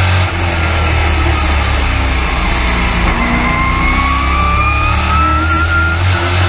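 Race truck's engine and drivetrain heard from inside the cab at racing speed. The pitch eases off about halfway through, then a rising whine climbs over a steady low rumble as it accelerates again.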